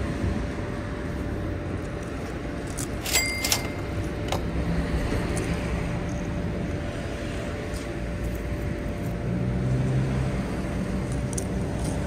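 Steady low rumble of a motor vehicle's engine running nearby, swelling a couple of times, with a few sharp clicks about three seconds in.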